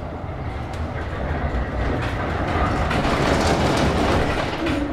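Tram running along street track, heard from inside the car: a steady rumble of wheels on rail with a few sharp clicks over the rail. It grows louder over the first three seconds, then holds.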